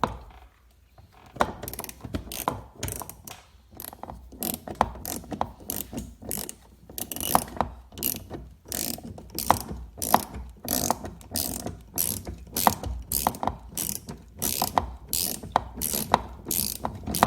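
Hand ratchet with an extension and Torx bit clicking through repeated back-swings as it loosens a long screw. The clicking starts about a second and a half in and goes on in uneven runs of quick clicks.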